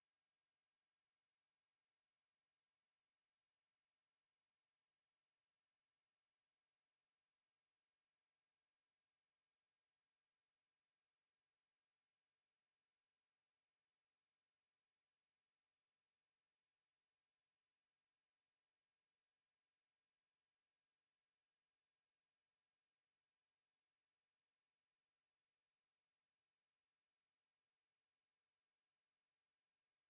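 Steady pure sine tone at 4902 Hz, a single high-pitched test tone at constant level with no harmonics or other sounds.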